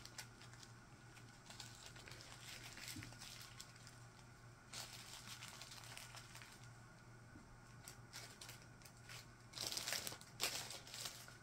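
Small plastic zip-lock bags of diamond painting drills crinkling faintly as they are handled and laid down on a table, louder for a moment near the end.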